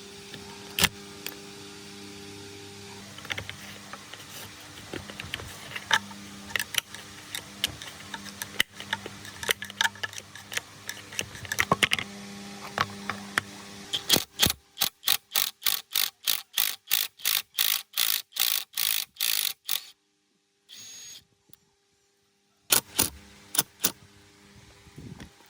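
Metal workshop sounds: a steady low hum with scattered metallic clicks and knocks, then a rapid, even run of sharp metallic taps, about four or five a second, that cuts off abruptly. A few more clicks follow near the end.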